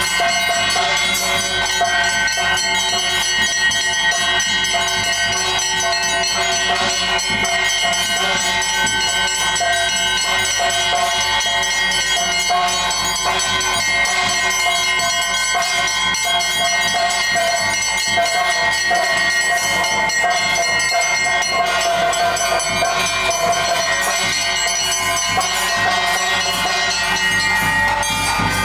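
Bhuta kola ritual music: bells ringing and jingling without pause over several steady held tones.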